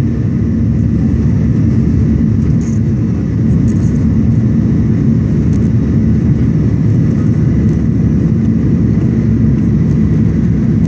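Cabin noise of a Boeing 737-900 climbing after takeoff: its CFM56-7B turbofan engines at climb power and the rush of air over the fuselage, a loud, steady noise with a low hum.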